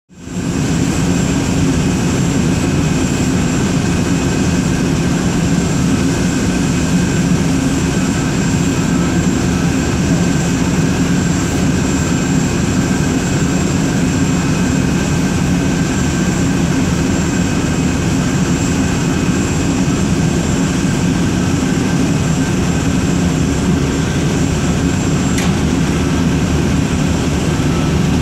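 Steady, loud jet-turbine noise from aircraft on the ramp: a continuous rumble with thin, steady high whines over it.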